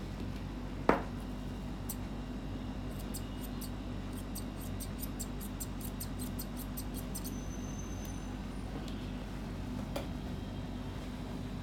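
Grooming scissors snipping a Maltese's leg hair: a quick run of light metallic snips, about five a second, for roughly four seconds starting about three seconds in. A single sharp click about a second in is the loudest sound, over a steady low hum.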